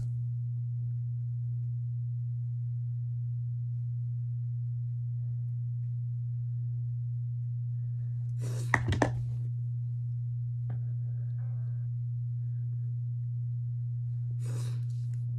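A steady low hum, broken by two brief noisy sounds, one about nine seconds in and one near the end.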